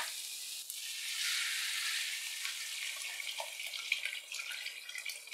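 Water poured in a steady stream into a kadai of fried potatoes and spiced tomato masala, splashing into the pan.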